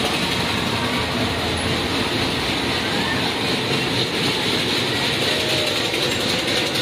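Steady rumbling, clattering din of a giant Ferris wheel turning, heard from inside one of its gondolas, blended with the general noise of the fairground.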